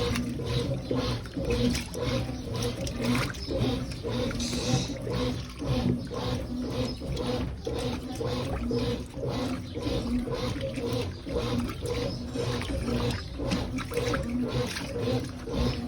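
Brastemp top-loading washing machine agitating a wash load with a heavy blanket: a motor hum that pulses with each stroke of the agitator, and water sloshing and splashing in the tub in a steady rhythm.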